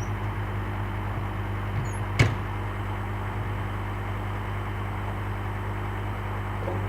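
Heavy equipment engine idling steadily, with a single sharp knock about two seconds in.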